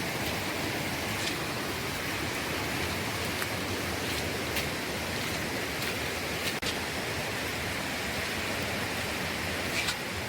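Steady rush of flowing water in the rainforest, with a few faint, short high-pitched sounds scattered through it.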